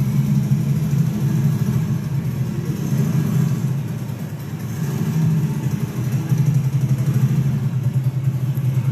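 Motorcycle engine sound played back by a sound simulator's speakers, a steady low running note with a fast pulse. It eases off about four seconds in, then comes back with a stronger pulsing beat, as the engine sound changes with the simulated riding.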